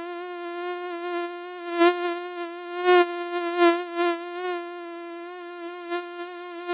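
Mosquito in flight: a steady buzzing whine of its wingbeats, rich in overtones, the pitch wavering slightly. It swells louder several times between about two and four seconds in.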